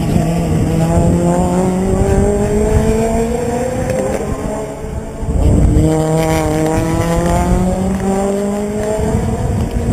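Race car engines accelerating on the circuit, their pitch climbing steadily for about four seconds, dropping, then climbing again for several more seconds. A brief louder low rumble comes about halfway through.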